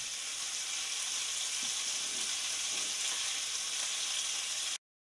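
Cubes of beef chuck sizzling in hot oil in a pan over medium-high heat, browning. A steady hiss that cuts off suddenly near the end.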